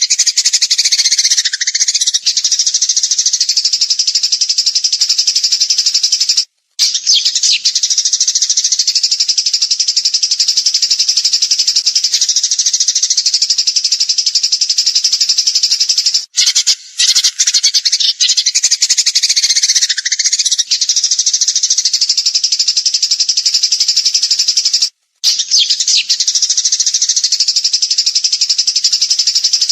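Recorded songbird song of the 'tembakan' kind used for masteran: a loud, dense, rapid-fire high trilled song. It breaks off briefly three times, with a falling sweep twice.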